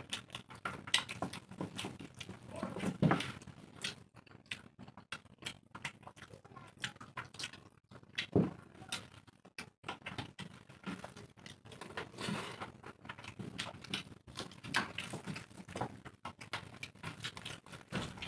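Two people eating rice by hand from steel plates: fingers mixing and scooping rice on the plates, with chewing and lip-smacking, heard as a steady stream of small irregular clicks and smacks.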